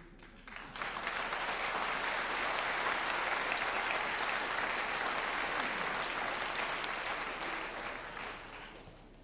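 Audience applauding: the clapping starts about half a second in, holds steady, and dies away near the end.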